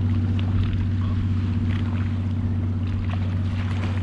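Sea-Doo jet ski engine running steadily at low speed with a constant hum, and water lightly splashing against the hull.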